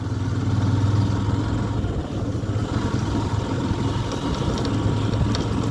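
A vehicle engine running steadily under way: a low, even drone with road noise over it.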